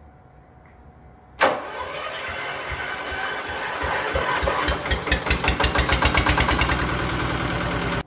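An engine or motor starts abruptly about a second and a half in and keeps running loudly, with a beat of about six pulses a second that grows stronger midway.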